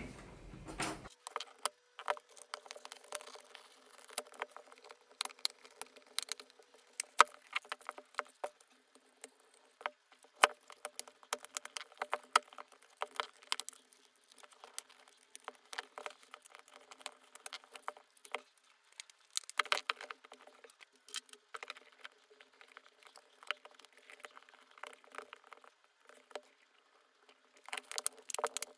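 Typing on an Ajazz AK820 Max mechanical keyboard with a tape mod: rapid, uneven keystroke clacks, breaking off briefly twice in the second half.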